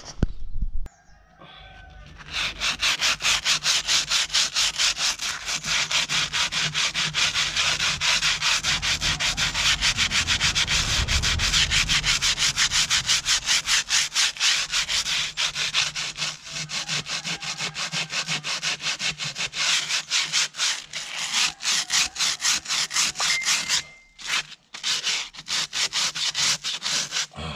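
Sandpaper rubbed back and forth by hand on the painted steel rear wheel rim of a David Brown 996 tractor, in rapid strokes several a second, sanding off the flaking old paint. The rubbing starts about two seconds in and pauses briefly near the end.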